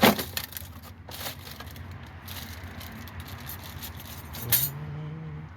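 A few sharp clicks and knocks of brake parts and tools being handled during a front brake pad change, over a low steady hum. The loudest click comes right at the start. Near the end a person hums briefly.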